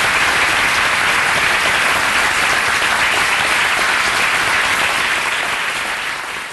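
Audience applauding, a dense steady clapping that eases off slightly near the end.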